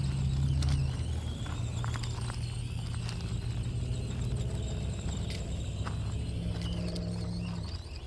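Axial SCX24 Deadbolt 1/24-scale RC crawler's electric motor and gear drive humming as it climbs over rocks, its pitch stepping up and down with the throttle and easing off near the end. Scattered sharp clicks of tyres and stones on the gravel.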